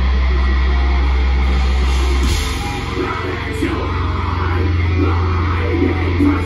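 A metalcore band playing live and loud: a sustained low bass drone, then, about two seconds in, the full band comes in with a heavy riff and fast low pulses from the drums and guitars.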